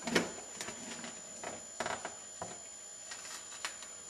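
Plastic door water shield being peeled away from its sealant on the door's inner frame, giving a string of irregular crinkles and crackles.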